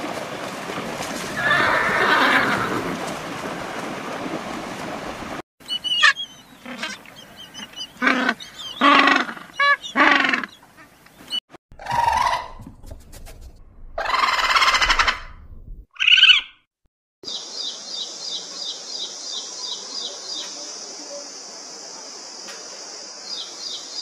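Horses galloping, with a neigh about two seconds in. Then a string of short, separate squeaky animal calls, and for the last several seconds a steady high-pitched buzz pulsing about five times a second.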